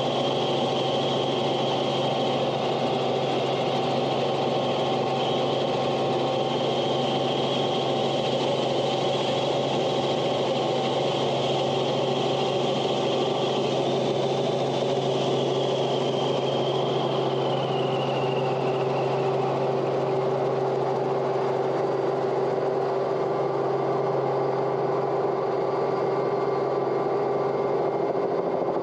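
A steady engine drone made of several constant tones. A high whine in it dips in pitch and fades out about two-thirds of the way through.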